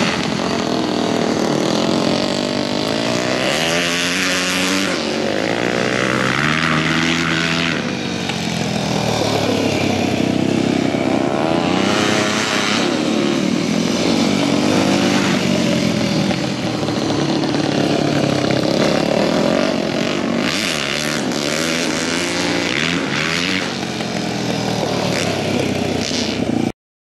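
Dirt-track racing motorcycle engines revving up and down in pitch as the bikes accelerate down the straights and back off into the turns of a flat-track oval. The sound cuts off suddenly near the end.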